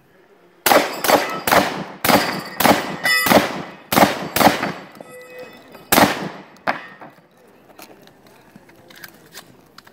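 About a dozen shots from a long gun fired in quick succession at steel plate targets. Each shot has an echoing tail, and the ring of struck steel comes in among them. The firing stops about seven seconds in.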